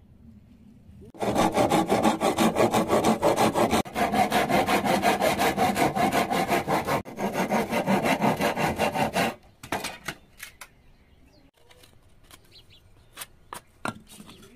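Hand saw cutting through a thin wooden board with fast, even back-and-forth strokes, about four a second, breaking off briefly twice and stopping about nine seconds in. A few light wooden clicks and taps follow.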